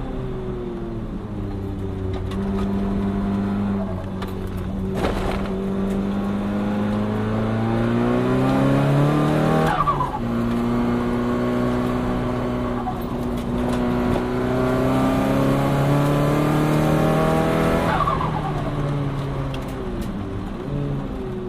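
Onboard sound of a turbocharged Nissan Silvia S15's engine pulling hard, its pitch climbing steadily through the revs. It drops sharply at an upshift about ten seconds in, then climbs again to another shift near the end.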